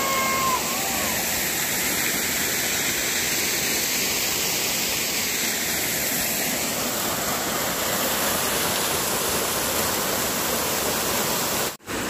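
A small waterfall on the upper Narmada, two streams pouring over rock ledges into a pool, makes a steady, even rushing of falling water. The sound cuts out for an instant near the end.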